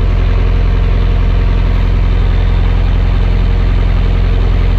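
Bobcat T450 compact track loader's diesel engine idling steadily, just started from cold and warming up. It now cranks and runs, the no-power, no-crank fault cured.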